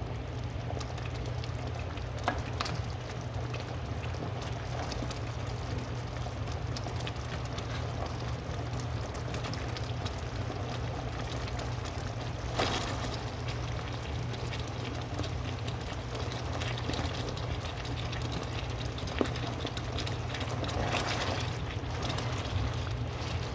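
Food cooking on a stovetop, with bubbling and sizzling over a steady low hum. A few short utensil knocks are scattered through it.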